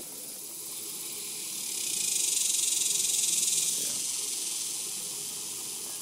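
High-pitched insect buzzing: a hissing drone that swells about two seconds in, holds for under two seconds, then fades back into a steady background hiss.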